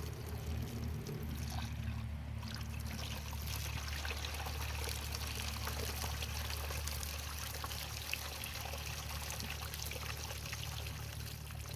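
Water steadily trickling and pouring out of bullet holes in a shot plastic water jug.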